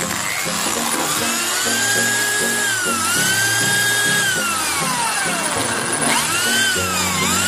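Corded electric drill running on test after its gear wheel was replaced: the motor whine holds, slows down steeply about five seconds in, then speeds up again as the trigger is eased and squeezed. Background music plays along.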